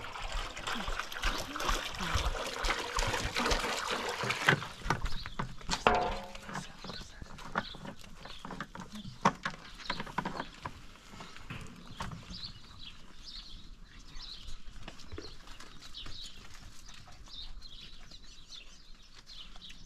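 A herd of goats crowding and feeding, with scuffling, hoof clatter and sharp knocks, busiest in the first few seconds. Small birds chirp in the second half.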